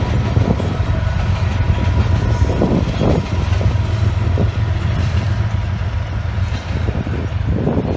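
BNSF diesel freight locomotives passing close by, their engines and wheels making a steady, heavy low rumble.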